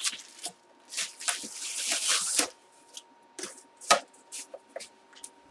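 Plastic packaging being handled and unwrapped: crinkling and rustling, loudest for about a second starting just past one second in, among light taps and clicks, with one sharp knock about four seconds in.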